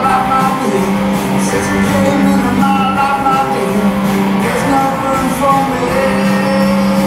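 Live rock band playing loud and steady: two electric guitars and a drum kit, with a voice singing over them.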